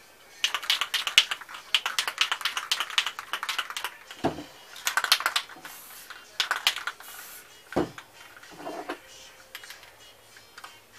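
Aerosol spray paint can being shaken, its mixing ball rattling in quick runs of clicks, with two dull knocks and two short hisses in between.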